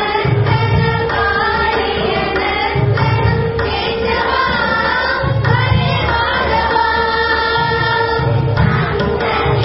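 A group of children singing a Hindu devotional bhajan together, over a steadily held drone note with hand-drum beats.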